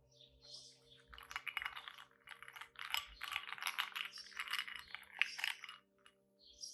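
An English cocker spaniel chewing ice cubes: a dense run of crisp crunches that starts about a second in and stops near the end.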